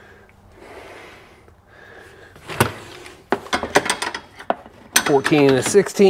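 Hands working on a plastic UTV center console: faint rustling, then from about two and a half seconds in a run of sharp clicks and knocks as push-pin trim clips are pried out of the plastic with trim clip pliers.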